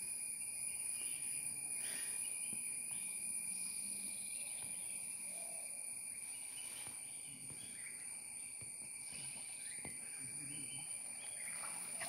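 Steady insect chorus: several high, continuous trilling tones that hold unchanged throughout.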